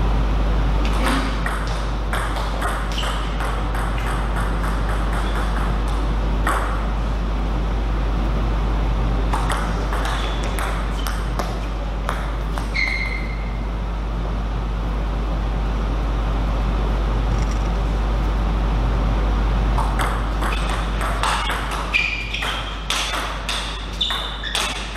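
Table tennis ball clicking back and forth between the paddles and the table in short rallies, in bursts with pauses between points, the longest rally near the end. A steady low hum runs underneath.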